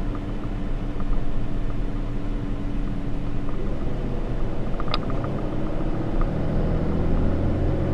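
Inside the cab of a 2013 Ram 3500 under way: its 6.7-liter Cummins inline-six turbo diesel drones steadily under road and tire noise. The engine note shifts about halfway through and grows stronger near the end. One light click comes about five seconds in.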